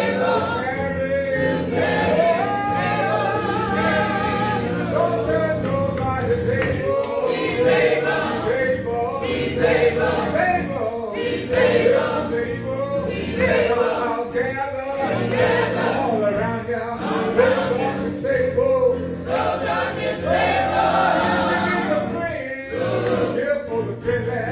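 Gospel choir singing with a male lead voice over steady instrumental accompaniment.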